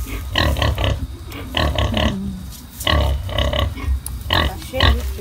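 Sow and her newborn piglets grunting while the litter nurses: short calls in quick clusters of three or four, repeating about every second or so.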